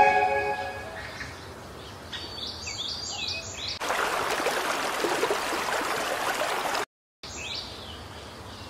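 A small bird calling in a run of quick falling chirps, then about three seconds of rushing stream water that starts and stops abruptly, with another chirp near the end. A chime's ring fades out in the first second.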